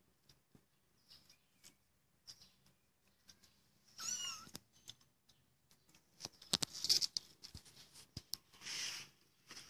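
Three-week-old kitten mewing: one high, wavering mew about four seconds in, with further short, noisier cries later and scattered small clicks and scuffs between them.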